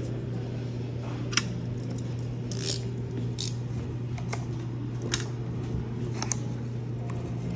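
Short crinkles and clicks of small plastic packaging and protective film being handled and peeled, one every second or so, over a steady low hum.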